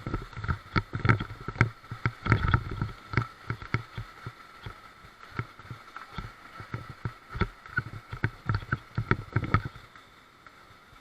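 Irregular knocks, thumps and splashes from a river raft and its paddles on the water, over a faint steady high whine. The knocks thin out near the end.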